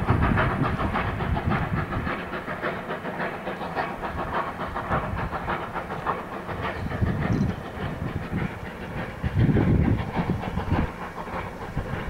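Narrow-gauge Baldwin steam locomotive working hard as it approaches, its exhaust beating in a fast, even run of chuffs over a steady hiss. A louder low rumble swells about ten seconds in.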